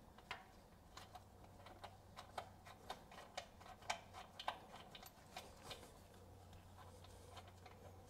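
Faint clicking of a flexible-head ratchet, about two clicks a second, thinning out after about six seconds, as it unscrews a PCV valve that has just broken loose from its thread sealer.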